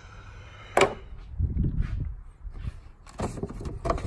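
Knocks and clatter of car parts being handled in an engine bay, behind the headlight: a sharp knock about a second in, a low rumbling clatter just after it, and a few more clicks and knocks near the end.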